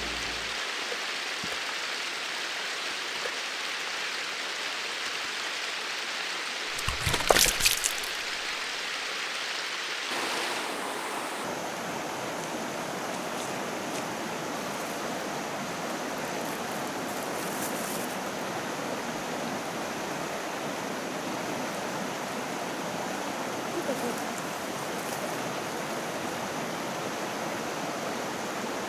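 Mountain river flowing, a steady rush of running water, with a short burst of sharp knocks about seven seconds in.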